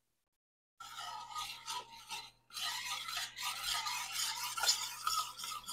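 A spoon stirring thin sauce in a stainless-steel saucepan, scraping and rasping against the pan. It starts about a second in and runs with a couple of short breaks.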